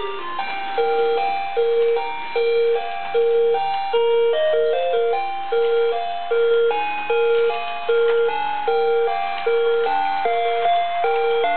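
Santa toy train's built-in speaker playing a Christmas tune: a tinny electronic melody over a low note that pulses on a steady beat.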